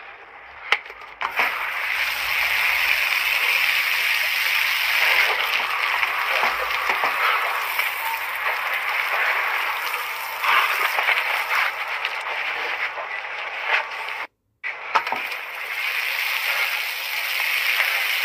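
Outdoor shower running, a steady hiss of water spraying and splashing, with a short click or two as it starts about a second in and a brief break in the sound about two-thirds of the way through.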